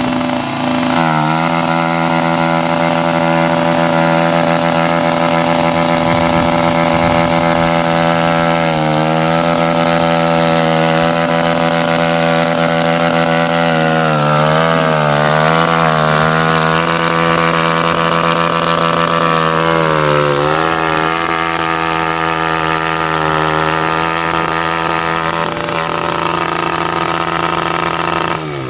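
Kawasaki KLX 125 single-cylinder four-stroke dirt bike engine with a Pro Circuit T4 exhaust, held flat out at the rev limiter for a stationary burnout. The rear wheel spins in the dirt. The engine note stays high and steady, dipping slightly now and then.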